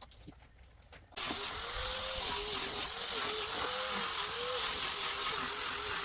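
A power tool switched on about a second in and running steadily, its motor pitch wavering up and down slightly under a loud hiss.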